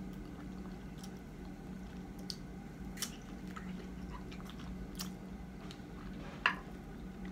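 Close-up mouth sounds of chewing and biting soft, ripe baby mango flesh, with scattered short wet clicks and smacks; the sharpest comes about six and a half seconds in.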